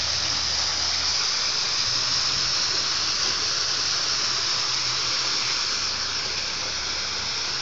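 Steady rushing hiss of water pouring down a waterfall.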